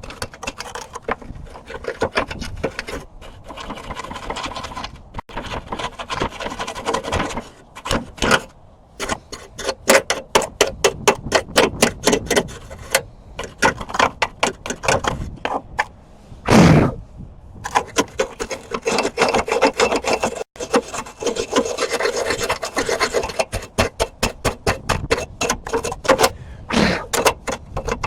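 Small wire brush scrubbing rust off a steel car hood latch: a rasping scrub that settles into quick back-and-forth strokes, several a second. One louder thump about two-thirds of the way through.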